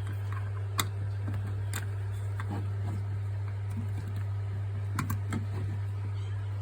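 A few faint sharp clicks from a Lightning charging cable being handled and flipped over, over a steady low hum.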